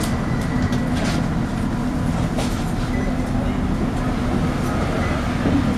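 Interior sound of a MAN 18.240LF bus under way: a steady engine and road drone carrying a constant hum, the vacuum-cleaner-like 'hoover' whine these buses are known for, and a few sharp rattling clicks from the body.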